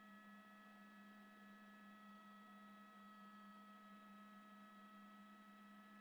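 Near silence with a faint steady electronic hum made of a few constant tones, one low and several higher, unchanging throughout.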